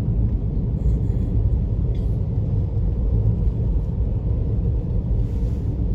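Car driving, a steady low rumble of engine and tyre noise heard from inside the cabin.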